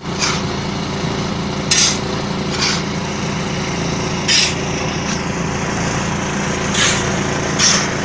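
Small diesel engine of a wheeled concrete mixer running steadily, turning the drum. About six short, sharp scrapes of shovels are heard as the drum is loaded.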